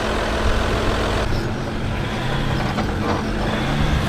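Off-road 4x4's engine running at crawling speed over rock, its note changing about a second in and rising near the end.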